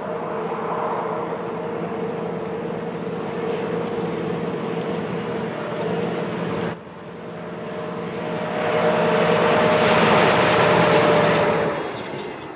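Diesel locomotive with a wedge snowplow running under power, its engine drone mixed with the rushing hiss of snow being thrown aside. After an abrupt break about halfway, the sound swells to its loudest as the locomotive passes close, then falls away near the end.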